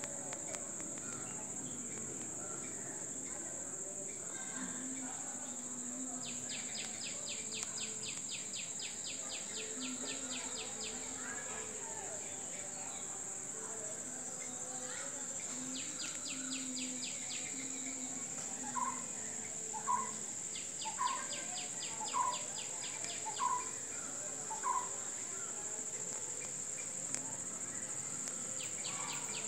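Night insect chorus: a steady high-pitched trill runs throughout, broken by several bursts of rapid pulsing from another insect. In the second half, another animal gives six short rising calls a little over a second apart.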